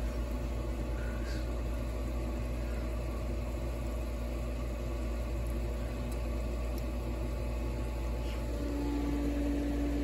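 Pool equipment motors running with a steady electric hum, while a Hayward heat pump pool heater waits out its compressor delay after a capacitor replacement. About eight and a half seconds in, a steadier, higher hum joins in.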